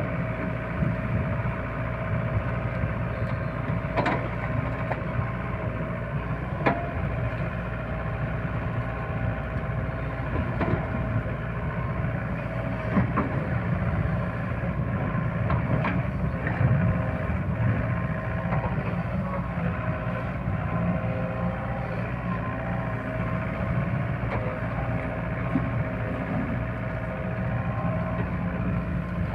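SDLG crawler excavator's diesel engine running steadily as it digs, with a steady whine that wavers a little in pitch and a few sharp knocks scattered through.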